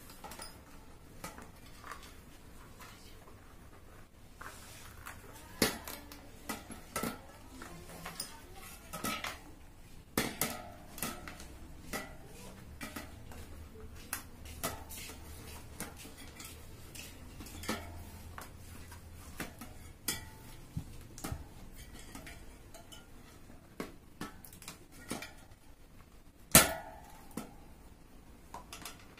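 Scattered clicks, taps and knocks as a KENDA 20-inch folding-bike tyre is worked onto a spoked metal wheel rim by hand, the rim and hub clinking against a tiled floor. One sharp knock near the end is the loudest.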